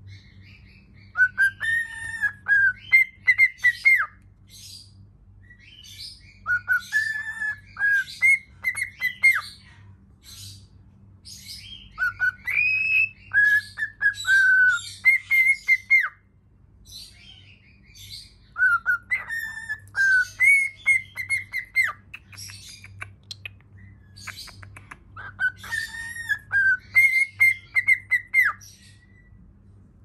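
Cockatiel singing: the same whistled phrase, a few rising notes then a run of short repeated whistles with scratchy chatter, given five times a few seconds apart.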